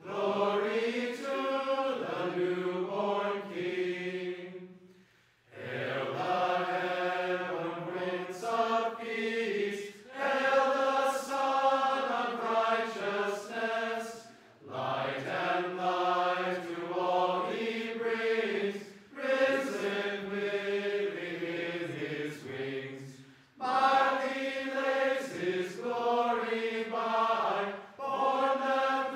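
Group of men's and women's voices singing a song together, in phrases a few seconds long with short breaths between them; the longest pause comes about five seconds in.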